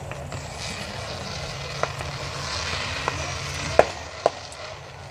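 Fireworks going off: four sharp pops, the loudest a little before the four-second mark, over a crackling hiss. A steady low hum runs underneath.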